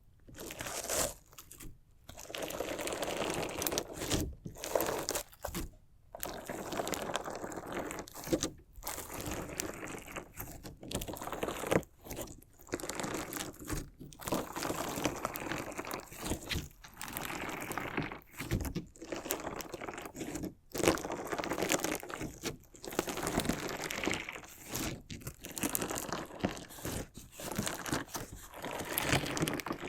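Slime jelly mixed with decorative interior stones being worked by hand, giving a crunchy, grinding crackle. The crackle comes in repeated bouts with short pauses between them.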